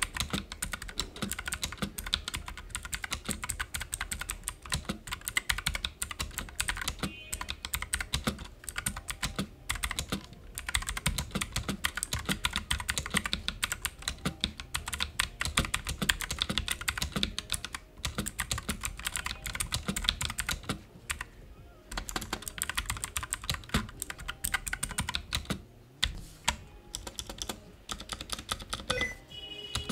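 Fast typing on a budget Bajeal mechanical keyboard with its stock blue switches: a dense run of clicky keystrokes, broken by a few short pauses.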